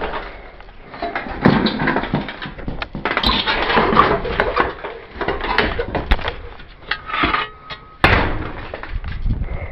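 Concrete blocks being moved and set against a sheet of tin: scraping and repeated knocks, with the loudest thump just after 8 seconds.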